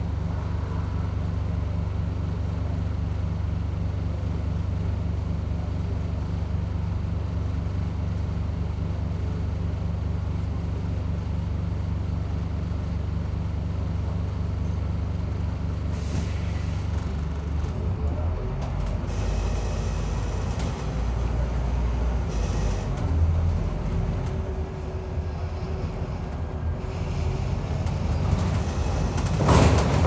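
Scania N230UD double-decker bus's diesel engine heard from on board, running steadily at an even pitch for the first half. Then air hisses, the engine note changes, and a loud burst of noise comes near the end.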